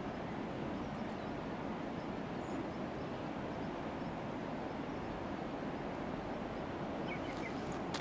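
Steady rushing outdoor noise at an even level, with a few faint high chirps near the end.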